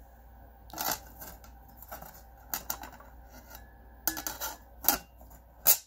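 Metal lid of a thin mini-ITX PC case being set down and fitted into place: a series of short metallic scrapes and clicks, the sharpest one near the end.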